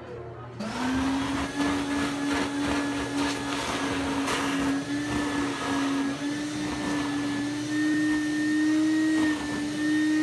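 Build-A-Bear stuffing machine running, its blower forcing stuffing through the nozzle into a plush bear. It starts about half a second in as a steady motor hum over a whoosh of air, creeping slightly up in pitch.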